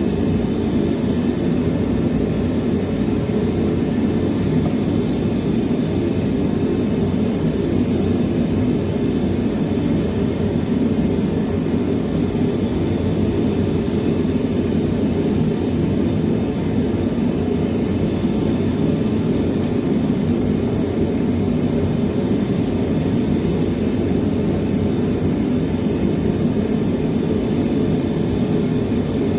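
Steady, unbroken roar of a metal-melting furnace's burner running at full blast.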